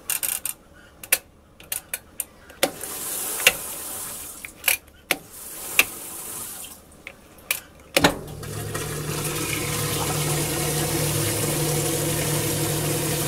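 Old Maytag top-load washer: a series of sharp clicks as its timer dial is turned, then about eight seconds in the motor starts and runs with a steady hum while the pump drains the water with a steady rushing sound, the machine kicked into spin.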